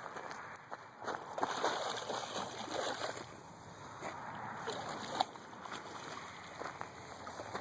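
Irregular water splashing and sloshing from a hooked channel catfish as it is fought in and landed.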